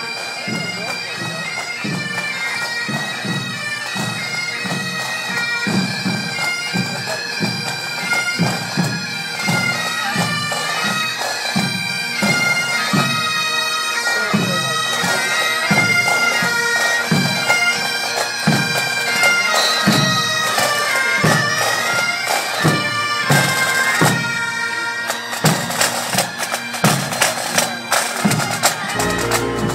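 Police pipe band marching and playing: Great Highland bagpipes carrying a melody over a steady beat of bass and snare drums, with the drumming getting busier near the end.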